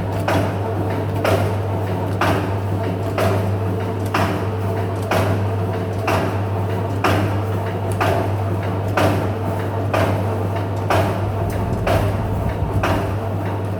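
Meat dicing machine running, with a steady electric motor hum and a sharp clacking stroke about once a second as its cutting cycle repeats.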